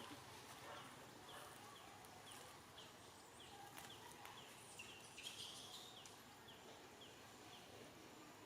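Faint outdoor ambience with a small bird's short, high chirp repeated about twice a second, and a few soft clicks and rustles.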